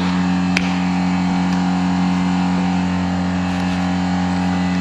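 Steady machine hum, one low tone with its overtones, unchanging, with a light click about half a second in.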